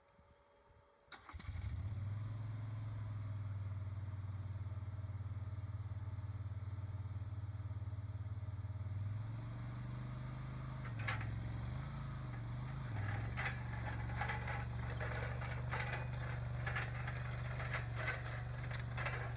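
Boxer 427 mini skid steer's engine starting about a second in and then running steadily. The engine speed rises about halfway through and wavers briefly, and repeated clatters and knocks come through the second half.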